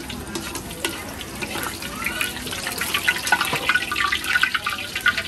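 Water running and splashing amid rapid, busy clattering, with voices in the background.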